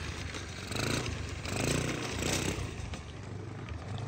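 Small kids' minibike engine running as the bike rides off across dirt, its note swelling and dropping twice with the throttle.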